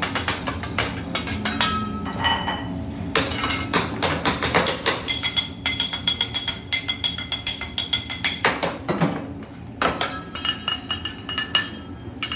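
Hibachi chef's metal spatula and knife clacking rapidly on the steel teppanyaki griddle: a fast run of ringing metallic taps that comes in bursts, densest and most even in the middle.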